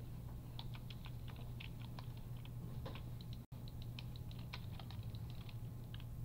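Computer keyboard keys tapping in irregular, scattered clicks over a steady low electrical hum. The audio cuts out for an instant about three and a half seconds in.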